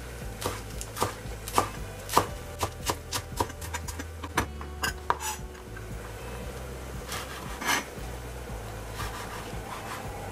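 Kitchen knife chopping on a cutting board: quick, irregular taps through radish sprouts for the first five seconds or so, then fewer, softer strokes as it slices a sheet of fried tofu.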